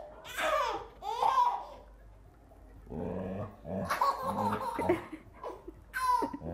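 A baby laughing and squealing in short, high bursts, with a longer, lower-pitched vocal sound about three to five seconds in.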